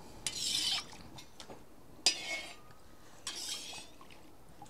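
A metal slotted skimmer stirring and scraping through heating oil in a kazan: three short scraping strokes, about a second and a half apart.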